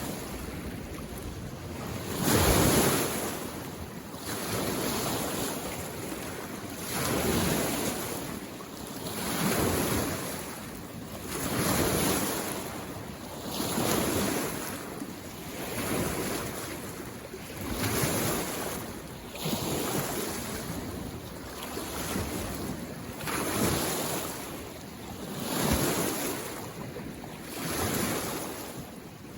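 Small lake waves washing in against the shore, one wash about every two seconds, the strongest a little over two seconds in.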